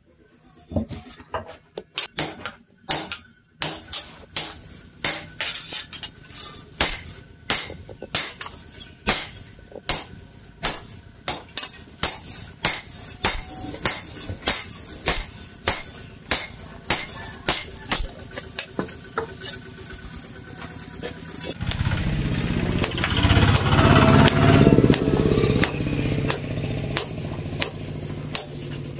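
Hand hammer striking a steel sword blade on a small post anvil: a long, even run of sharp metallic strikes, about two a second. Near the end a steady rushing noise starts suddenly, and the strikes go on, fainter, under it as the blade is worked red-hot.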